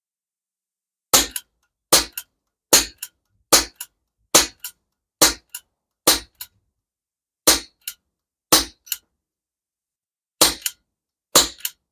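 A CO2-powered airgun fired eleven times in quick succession, one sharp crack roughly every second. Each crack is followed about a quarter second later by a fainter strike of the pellet hitting the steel plates of a Texas Star reactive target.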